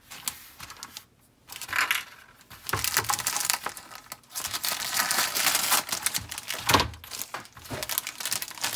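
Clear plastic kit bag crinkling and rustling as the bagged styrene sprues are handled, with small crackling clicks. It is sparse at first and gets busier from about two and a half seconds in.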